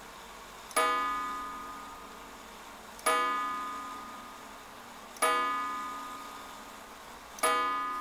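Seth Thomas 89 AL tambour clock striking the hour with a single hammer: four evenly spaced strokes about two seconds apart, each ringing and slowly fading, counting four o'clock.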